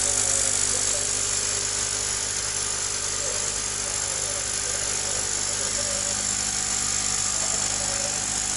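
Small electric air pump aerating the eel-fry basins, humming steadily through the airline tubing.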